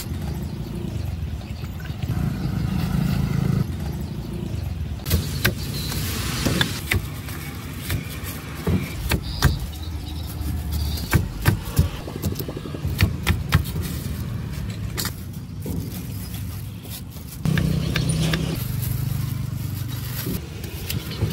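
Motor vehicle engines running past on the street, loudest early on and again near the end, with a string of sharp knocks through the middle.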